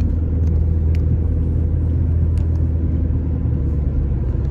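Car cabin road noise while driving: a steady low engine and tyre rumble, with a few faint clicks.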